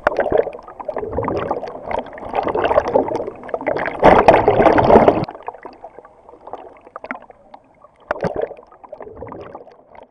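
Pool water sloshing and gurgling right at the microphone, with small splashes. It is loud for about five seconds, then drops off suddenly to quieter lapping with a few brief splashes.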